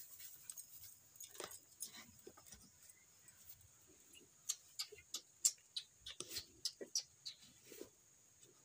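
Cow being milked by hand: short spurts of milk hitting the pail, irregular and faint at first, then about two a second, over a steady high hum.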